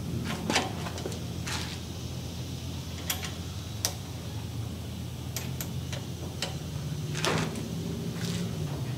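Scattered light metallic clicks and clinks from sway bar end link hardware (bushings, washer, spacer and nut) being worked by hand, with a short scrape about seven seconds in, over a steady low hum.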